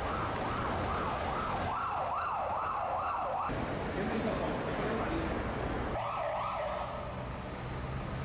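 An emergency vehicle's siren yelping, its pitch sweeping rapidly up and down about three times a second over a steady low rumble. It breaks off about three and a half seconds in and comes back briefly around six seconds.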